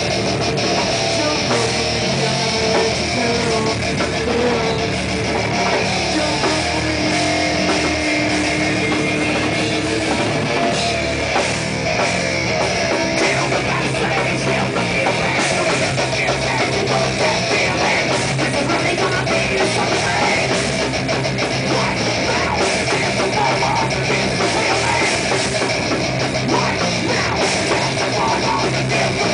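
Heavy metal band playing a song: electric guitar, bass guitar and drum kit, at a steady loud level.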